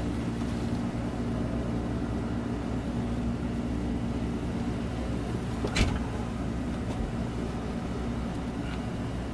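Engine of a small patrol boat running steadily underway, a low drone with a steady hum, and one sharp knock a little under six seconds in.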